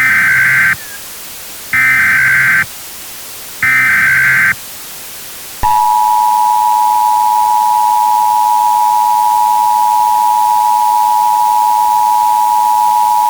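Emergency Alert System SAME header: three short bursts of warbling data tones about a second apart. About five and a half seconds in, the steady two-tone EAS attention signal begins and holds.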